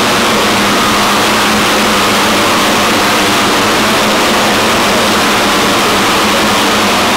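Racing motorcycle engines running on the circuit, a loud, steady din that stays at one level throughout with no single bike standing out.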